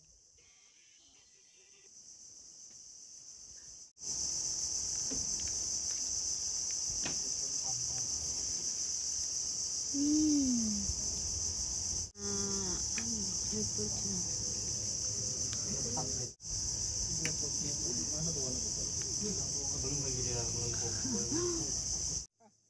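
Insects droning in a loud, steady, high-pitched chorus. It starts abruptly about four seconds in, drops out for a moment twice, and stops just before the end. Brief voices can be heard faintly beneath it.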